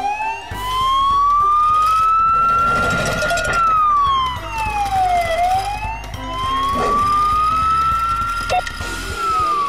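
Police siren wailing, rising slowly in pitch for a few seconds and then falling, through about two long cycles, with a low rhythmic pulse underneath.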